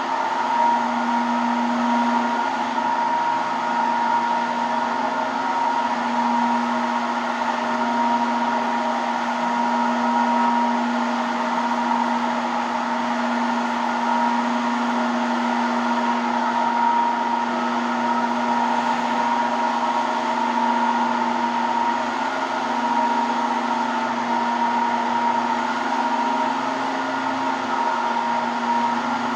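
Electric marble polishing machine running steadily, a constant motor whine with no change in speed or load.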